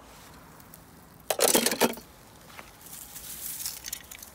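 Dry grass and leaves rustling and crunching as a hand picks a toy car out of them. There is one loud crunch about a second and a half in, then lighter rustling.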